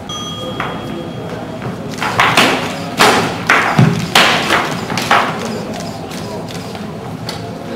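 Simulated longswords clashing in a rapid exchange: about eight sharp hits in three seconds, one of them a duller, heavier thud, echoing in a large hall.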